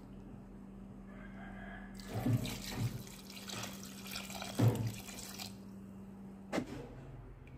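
Water poured into a pressure cooker onto dal and mutton, splashing for about three and a half seconds from about two seconds in, followed by a single sharp click near the end.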